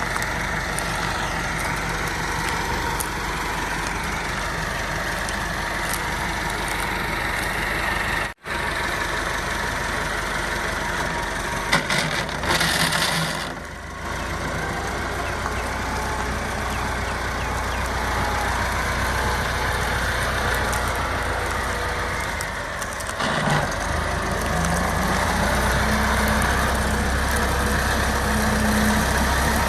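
A tractor engine runs steadily, driving a wheat thresher: a continuous mechanical drone. It cuts out for an instant about eight seconds in, swells briefly around the middle, and settles into a heavier, deeper hum for the last few seconds.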